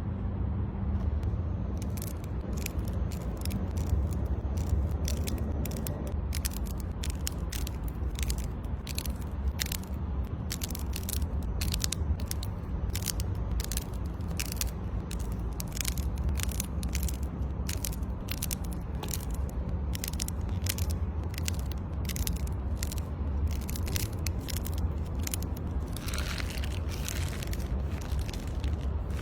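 Crunchy slime being pressed and worked: many sharp crackling pops at a few a second, irregularly spaced, over a steady low rumble.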